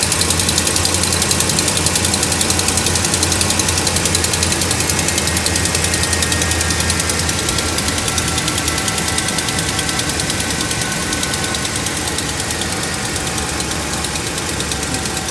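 Dodge Ram's Hemi V8 running, with a fast, even ticking over the engine sound, which the owner calls a ridiculous noise. He is unsure whether the tick comes from the engine itself or from an exhaust leak.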